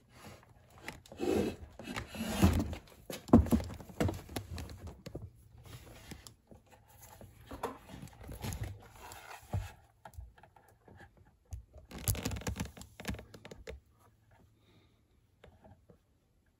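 Cardboard boxes rustling and scraping, with a few dull bumps, as a heavy 18-inch subwoofer is turned around among them. It goes quiet about 14 seconds in.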